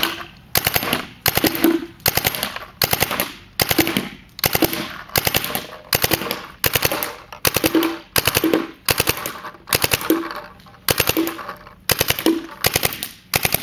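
Paintball gun firing continuously in rapid bursts, each a tight cluster of several sharp pops, at about two bursts a second.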